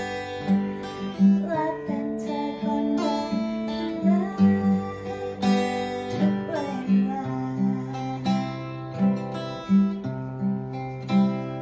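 Acoustic guitar being tried out for its sound, playing a song melody over a steady, even beat and long held bass notes.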